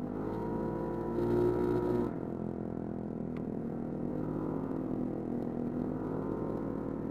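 Yamaha NMAX scooter engine, bored up to 63 mm, running under way while riding, with a louder stretch from about one to two seconds in.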